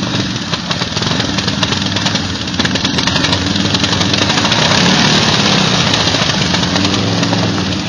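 Quad (ATV) engines running steadily, growing louder and noisier for a couple of seconds around the middle.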